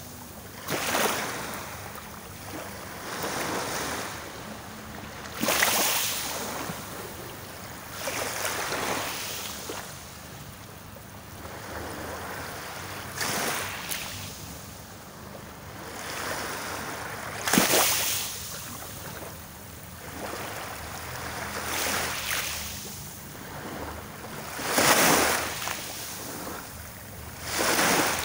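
Small sea waves breaking and washing up onto the shore every two to four seconds, each a rush of surf that swells and fades.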